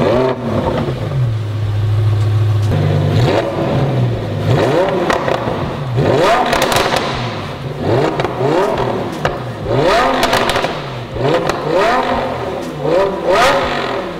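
Lamborghini Huracán Performante's V10 with a Fi Exhaust valvetronic cat-back exhaust, firing up with a flare of revs and settling into a high idle, then revved in a string of quick throttle blips. There are crisp pops as the revs fall.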